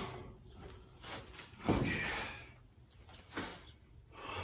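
Scraping and rustling as a band clamp is worked around a paper-wrapped 8-inch chrome exhaust stack, in three short bursts: a faint one about a second in, a louder one near two seconds, and a brief one past three seconds.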